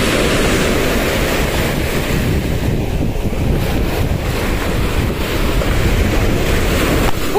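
Sea waves breaking and foamy surf washing up over the sand, with heavy wind buffeting the microphone in a steady rumble.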